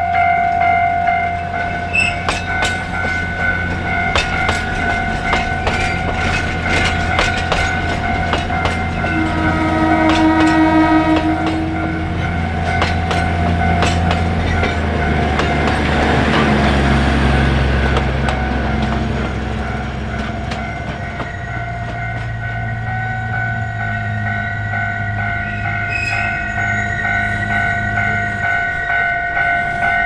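Alishan Forest Railway train running, heard from a passenger car: a low engine rumble that changes pitch a couple of times, wheels clicking over the rail joints, and a steady high squeal from the wheels. A horn sounds for about two to three seconds about ten seconds in.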